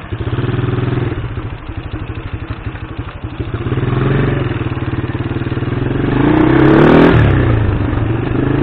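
A vehicle engine running at idle with a fast, even pulse, then revving up. The revs rise a little about four seconds in, climb to the loudest point around seven seconds, and drop back.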